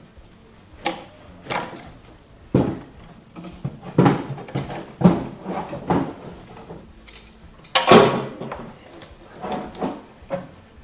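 Irregular knocks, clunks and scrapes of hand work on a snowmobile's engine bay while a radiator hose is worked off, with the loudest clunk about eight seconds in.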